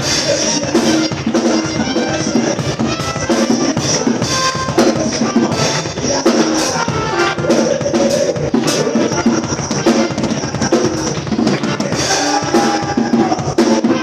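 Drum kit played live, with frequent bass drum, snare and cymbal strikes, over other band music.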